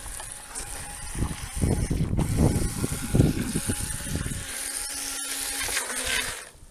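Radio-controlled speedboat running on the water: a steady high motor whine with churning spray, plus low rumbling in the middle. The whine cuts off near the end as the boat reaches the bank.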